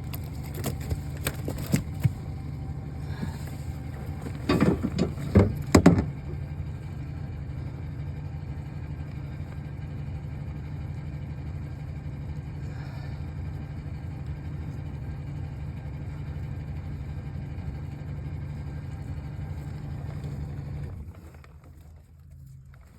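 A small boat's outboard motor running steadily with a low drone, with a few loud knocks and rattles about five seconds in. About 21 seconds in the motor drops away sharply to a much quieter level.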